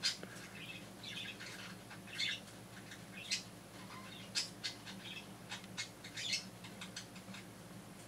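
Faint, irregular scratchy rustles and sharp little clicks as a hand works a small shipping container and its packing inside a glass terrarium.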